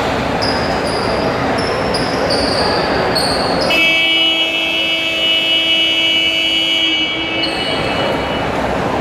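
Basketball arena scoreboard horn sounding one steady blast of about four seconds, starting about four seconds in. It signals a stoppage in play, over crowd chatter in a gymnasium.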